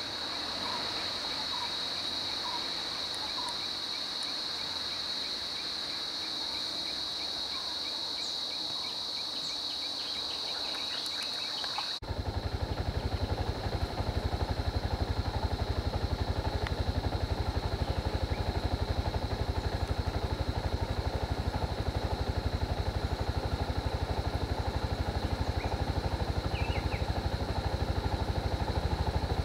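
Steady high-pitched drone of insects in the roadside forest, with a few bird chirps. About twelve seconds in it cuts to a louder low rumble of idling vehicle engines, with the insect drone fainter behind it.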